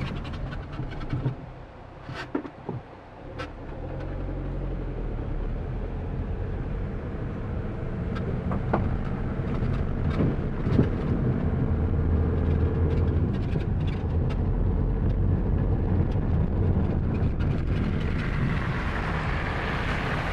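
Car engine running steadily with road noise. A few sharp clicks and knocks come in a brief quieter patch about two seconds in, before the steady drone settles in.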